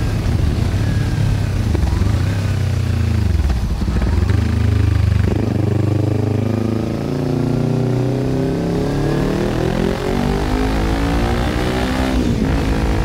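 Kawasaki Ninja 300's parallel-twin engine running loud through an aftermarket exhaust, recorded while riding at about 70 km/h. The engine note shifts in the first half, then climbs steadily in pitch over the second half as the bike pulls.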